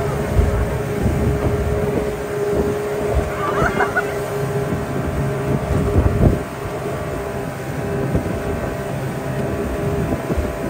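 Yamaha 200 hp outboard motor running a speedboat at high speed with a steady whine, over the rush of the wake and gusting wind on the microphone.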